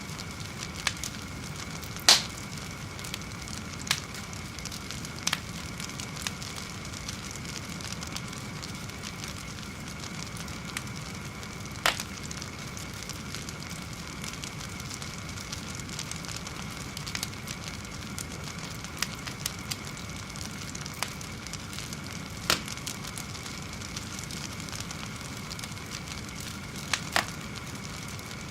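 Fire burning, a steady hiss and rumble broken by sharp crackles and pops at irregular intervals, the loudest pop about two seconds in.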